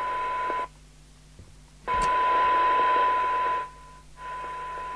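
Thunderpole T2000 CB radio's received audio: a steady 1 kHz test tone over hiss. It cuts out about two-thirds of a second in, comes back louder with a click near two seconds, dips again briefly around four seconds and returns quieter, as the set's RF gain control is worked.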